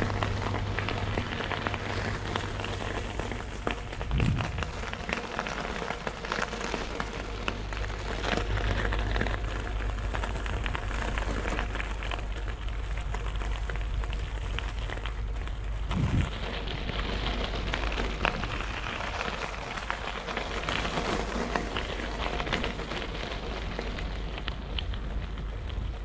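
Ride noise from a moving bike: a steady crackling rattle with fine clicks throughout and a low hum underneath, with two heavier thumps, one about four seconds in and one about sixteen seconds in.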